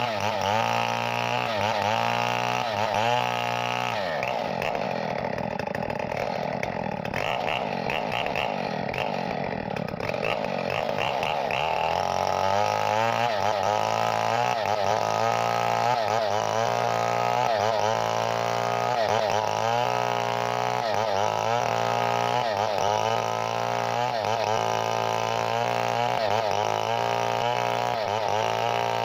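Chainsaw engine running under changing throttle, its pitch dipping and recovering about once a second, with a rougher, noisier stretch in the first third.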